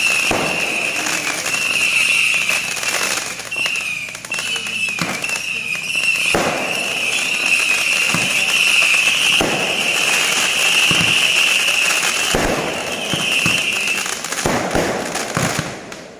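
Fireworks going off: repeated sharp bangs over a crackling haze, with a high, steady whistling tone that stops about fourteen seconds in.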